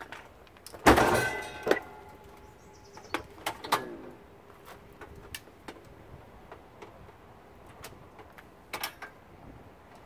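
Metal clanging from a stainless steel dishwasher door and its spring hardware being worked loose. A loud clang with a ringing tail comes about a second in, then lighter clanks and clicks, with another pair of knocks near the end.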